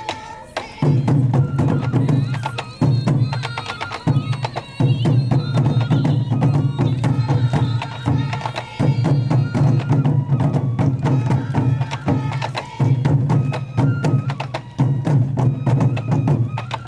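Sansa odori festival music: dense taiko drumming in phrases with short breaks about every two seconds, sharp clicking strikes, and a flute-like melody above.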